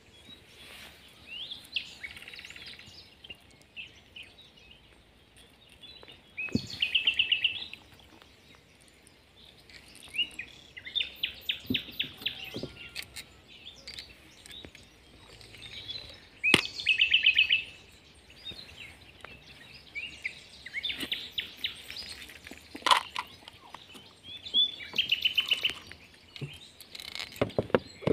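A small songbird repeatedly sings short, fast trills, each about a second long, coming every few seconds. Scattered sharp knocks and clicks are heard between them.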